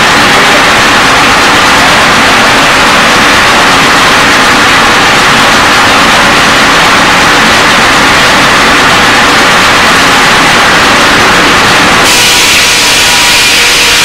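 Sawmill machinery running loud and steady, a dense mechanical noise with no breaks. About twelve seconds in, the sound changes abruptly and steady whining tones come in.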